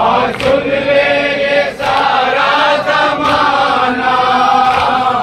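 Group of men chanting a noha in unison in long held notes, with a sharp beat of matam, hands striking chests, about every second and a half.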